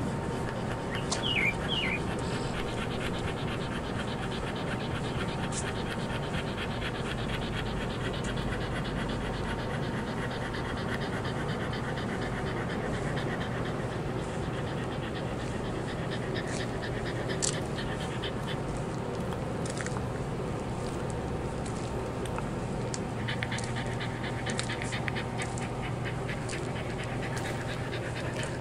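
A dog panting steadily and close to the microphone as it walks. A bird chirps briefly about a second in.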